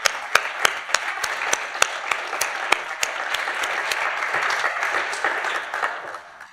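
Audience applauding, with sharp regular claps close to the microphone about three times a second. The applause dies away near the end.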